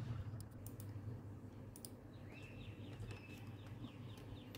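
A handful of sharp, scattered clicks from someone clicking on a computer, over a steady low hum.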